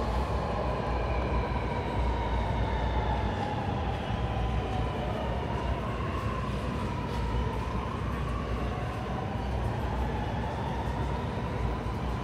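Sydney Metro Alstom Metropolis train running, with a steady low rumble and an electric motor whine whose pitch slowly drops and then climbs again.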